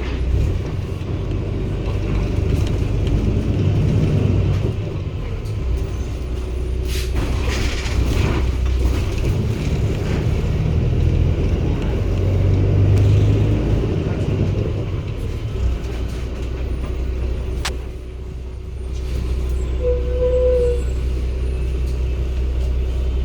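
Cummins ISB Euro 6 diesel (280 PS) of a 2016 Daewoo BS090 city bus running, its low rumble swelling and easing off several times. A burst of air hiss comes about seven seconds in, and a short beep sounds near the end.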